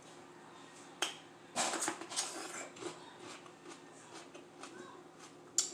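Crunching and wet smacking of mini sweet peppers being bitten and chewed close to the microphone: a sharp click about a second in, a louder crunchy stretch around two seconds, then many small mouth clicks.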